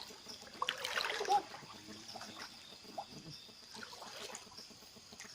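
Shallow river water splashing and trickling, with a brief burst of splashes about a second in, then scattered small drips and sloshes.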